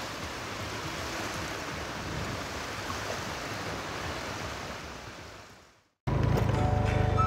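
Surf washing onto a beach: a steady rush of breaking waves that fades out about five seconds in. About six seconds in, music with a heavy bass starts abruptly.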